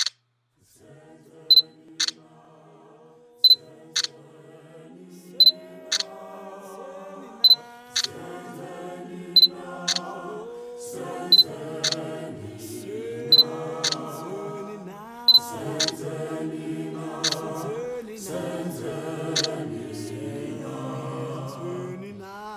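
Camera shutter clicks, usually in pairs about half a second apart, repeating roughly every two seconds over unaccompanied choir singing that fades in and grows steadily louder.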